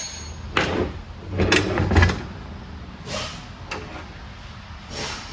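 Steel parts of a truck transmission shift top handled on a workbench: a few clanks and scrapes of metal, the loudest about two seconds in.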